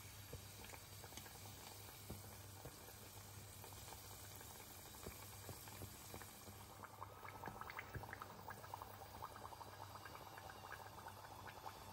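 Dough dumplings deep-frying in a pot of oil: faint sizzling and crackling of the bubbling oil, the crackle getting busier from about seven seconds in.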